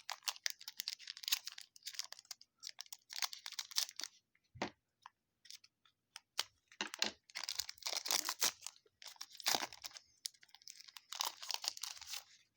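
Foil wrapper of a baseball card pack crinkling and tearing as it is opened, in several crackly bursts with short pauses between.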